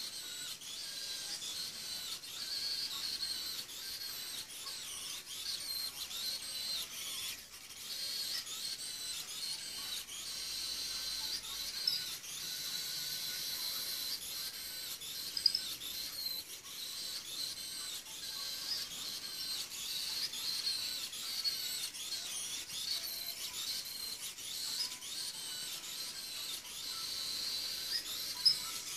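Small wheeled robot's tiny DC gear motors running, a high-pitched whine that wavers as the robot drives and turns. A few sharp clicks stand out.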